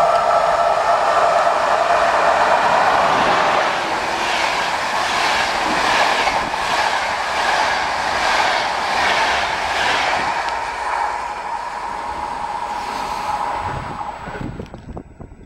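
Express passenger train behind an EP09 electric locomotive passing through the station at speed: a loud rush of wheel and rail noise with a rhythmic clatter of wheels over the rails, about one or two strokes a second. It dies away near the end.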